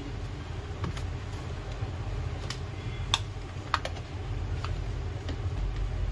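Scattered light clicks and taps of plastic as hands and a blue-handled tool work at the battery on the underside of a Compaq laptop to take it out, over a steady low hum.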